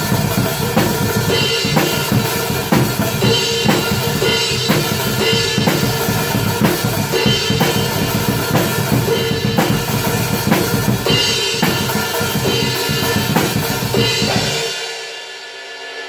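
Atmospheric black metal with fast, driving drums under a dense wall of guitar. About fifteen seconds in, the band stops and a ringing chord is left fading out.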